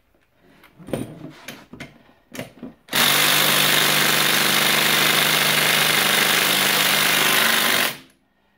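Cordless impact driver running steadily for about five seconds on the threaded rod of a coil-spring compressor, hammering without turning it loose: the driver lacks the power to back the compressor off. Starts about three seconds in and cuts off suddenly, after a few light clicks of the tool being handled.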